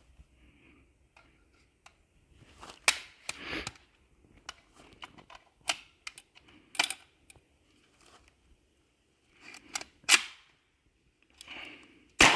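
Scattered metallic clicks and clacks from a jammed Auto-Ordnance Thompson M1 submachine gun being handled: the bolt and magazine are worked to clear a feed jam. A sharper clack comes near the end.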